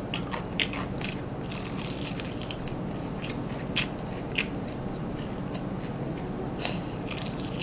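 Crisp crunching and crackling of fried chicken being bitten and chewed close to the microphone, in scattered snaps with a dense run about two seconds in and another near the end.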